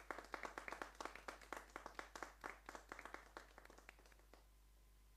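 A few people clapping, faint and uneven, as a small studio audience welcomes a performer. The clapping thins out and stops about four seconds in.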